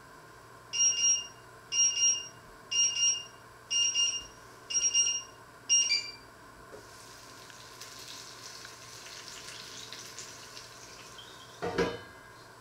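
Electronic kitchen timer beeping, six beeps about a second apart, which stop about six seconds in. A faint steady hiss follows, and near the end there is a short metallic clatter from a stainless steel pot lid being handled.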